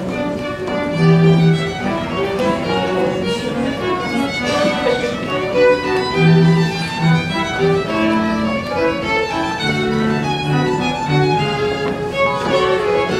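Wedding recessional music on violin and other bowed strings, a continuous melody of held notes.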